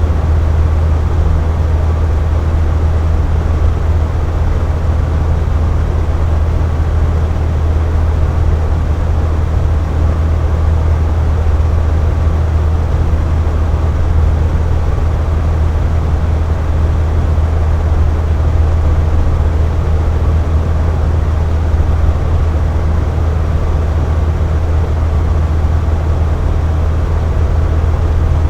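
Box fan running steadily: an even, deep whooshing hum of air with no change in speed.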